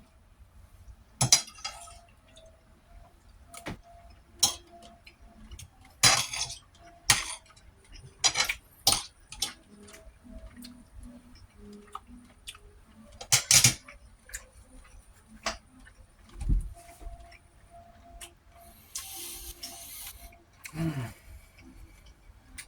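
Dishes and cutlery clinking as food is eaten from a plate: a scattered series of sharp clinks and clicks, with a short scraping hiss near the end.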